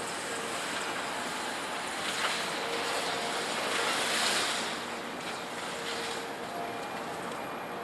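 Distant scrap-yard machinery noise: a steady, hissy rumble with a faint machine whine. It swells for about a second past the middle, with one light knock about two seconds in.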